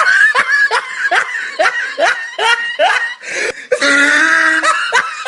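A person laughing in short, falling-pitched bursts, about two a second, then a longer held high vocal note near the end.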